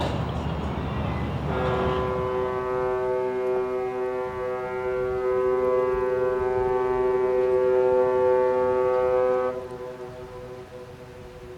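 Ship's horn sounding one long, steady blast of about eight seconds, then cutting off and fading away with an echo.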